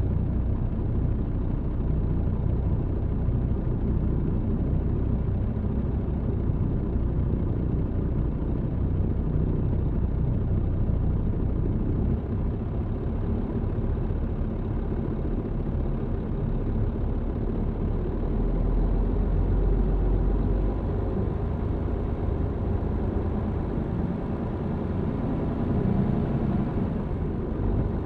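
MAN TGX truck's engine running while driving, heard from inside the cab together with road rumble. It makes a steady low drone with a faint thin whine over it. The low rumble grows heavier for a couple of seconds past the middle.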